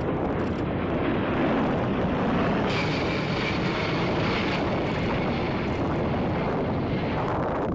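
A formation of A-10 Thunderbolt II jets passing overhead: the steady rushing noise of their TF34 turbofan engines, with a high whine standing out for about two seconds midway.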